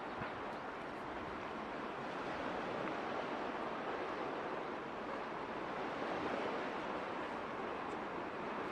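Steady rushing outdoor background noise, an even hiss with no distinct events.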